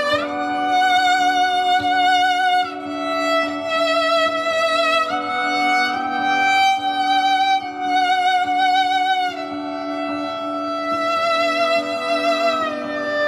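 Viola bowed in long, slow held notes with vibrato, the melody stepping to a new pitch every second or two, over a steady low drone that holds throughout.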